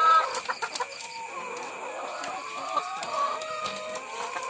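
Caged brown laying hens clucking, with drawn-out, gliding calls from several birds. A few sharp clicks come in the first second.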